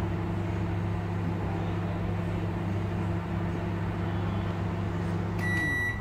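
Kenwood combination microwave running steadily on its grill setting, with an even hum from its fan and turntable motor. Near the end the hum cuts off and an electronic beep sounds as the timer reaches zero, the end of the cooking cycle.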